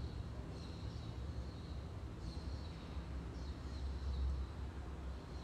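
Quiet room tone: a low steady rumble, with faint high bird chirps three times.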